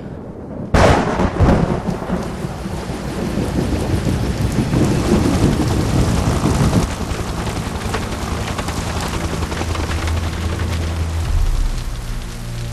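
A sudden thunderclap about a second in, rumbling on for several seconds, over steady heavy rain.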